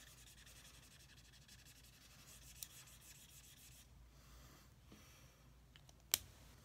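Faint scratchy rubbing of a felt-tip marker colouring back and forth on cardstock, fading out about four seconds in. A single sharp click comes near the end.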